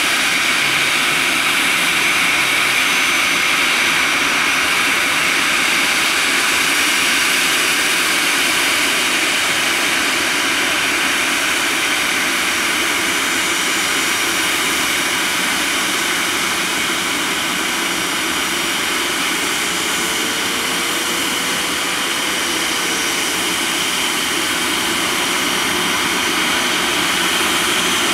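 Airbus A320-214's CFM56 turbofan engines running steadily at low taxi power as the airliner turns and lines up on the runway, a continuous jet whine and rush with no change in thrust.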